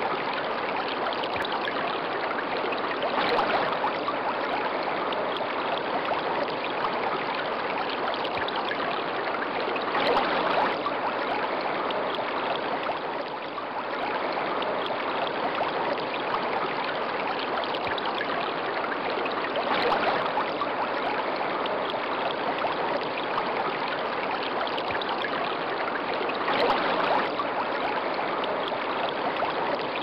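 Water falling down a small artificial rock waterfall into a garden pond: a steady splashing rush that swells a little now and then.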